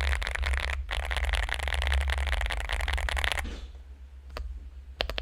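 Fast typing on a Finalkey V65 mechanical keyboard with lubed Akko Cream Yellow linear switches, tape-modded and foam-filled. The keystrokes come thick and rapid with a brief break just under a second in, trail off after about three and a half seconds to a single keystroke, then pick up again near the end.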